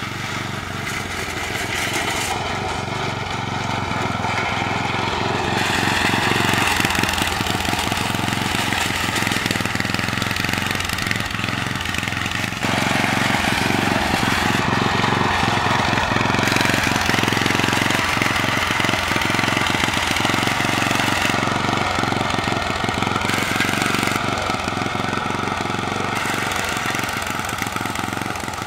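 Riding lawn mower engine, on a mower built up as a custom drag racer, running steadily as the mower is driven along a driveway. It grows louder as the mower comes close and eases off near the end as it pulls away.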